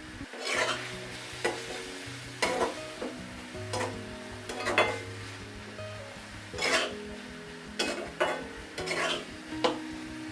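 A spatula stirring and scraping a minced-chicken filling in a kadai, in irregular strokes about once a second, with a light sizzle from the pan. Soft background music underneath.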